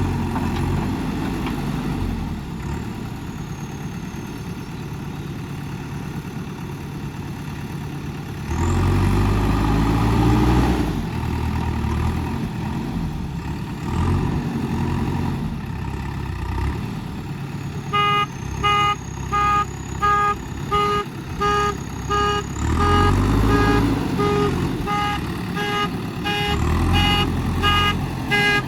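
Diesel engine of a backhoe or excavator running, revving harder several times as it works under load. From just past halfway, a reversing alarm beeps steadily about twice a second.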